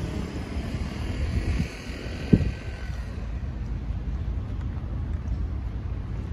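Steady low rumble of outdoor street noise, with one sharp thump about two and a half seconds in.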